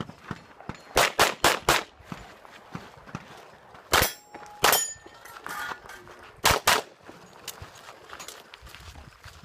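Glock pistol fired in three strings: four quick shots about a second in, then a pair of shots a few seconds later and another pair near the middle.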